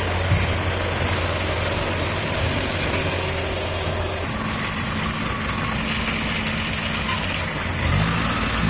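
Engine of a tracked rice combine harvester running steadily at idle, its note shifting slightly about four seconds in.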